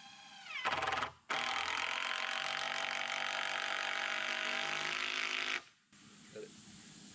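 Cordless power drill driving a screw to fasten a 2x6 board to a wooden post: a short burst about a second in that winds down, then a steady run of about four seconds that stops abruptly.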